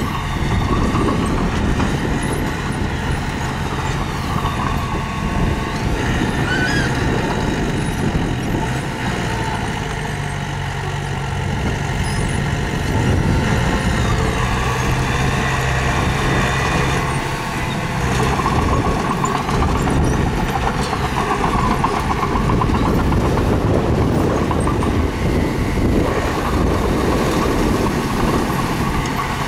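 Mini bulldozer's diesel engine running under load, its pitch shifting up and down as it works.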